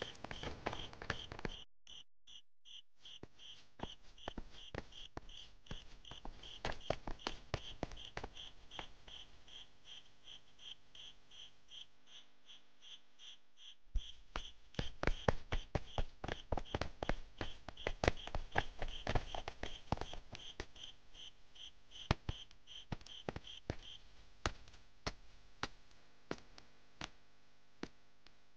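Crickets chirping in a steady pulsing rhythm, a few chirps a second, stopping near the end. Under them come scattered short taps and knocks, which grow busier about halfway through.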